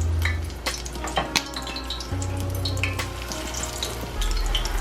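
Salmon cakes frying in a pan of hot oil, sizzling with many small irregular crackles and pops.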